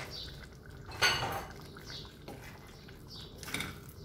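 Wooden spatula stirring chicken and chopped tomatoes in a stainless steel saucepan, knocking and scraping against the pot a few times. The loudest knock comes about a second in.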